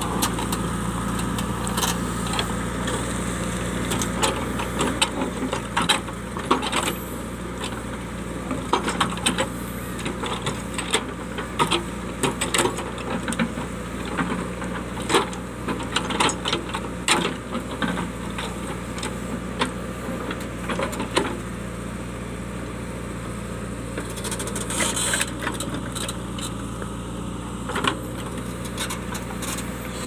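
JCB 3DX backhoe loader's diesel engine running steadily as the backhoe bucket digs into rocky soil, with loose stones scraping and clattering against the steel bucket in sharp, irregular clicks and knocks.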